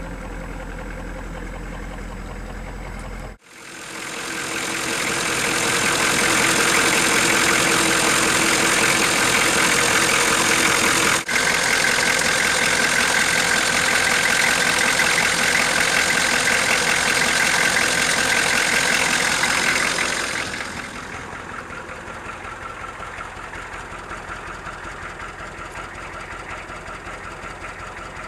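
Ford 6.9 L IDI V8 diesel engine running with the knocking noise the owner is trying to track down. After a brief break a few seconds in it grows much louder for a long stretch, then drops back to a lower, evenly pulsing run.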